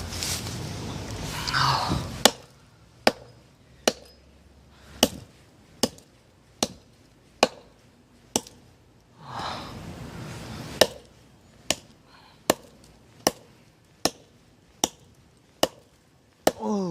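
A hatchet chopping into a very hard dead log: about sixteen sharp, ringing strikes, mostly a little under a second apart, broken by two short pauses. The blade barely bites, because the wood is extremely hard and the cheap hatchet's edge is chipped.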